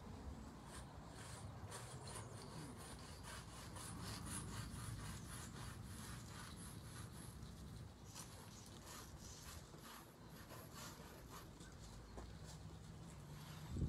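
Sidewalk chalk scraping on concrete in quick shading strokes, about two or three a second, with a short pause about seven seconds in. A single thump near the end.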